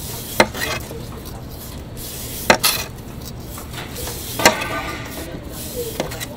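A large kitchen knife shaving the rind off a whole cantaloupe in strips, with a sharp tap about every two seconds as each stroke ends, four in all, and a short scraping rasp of the blade after two of them.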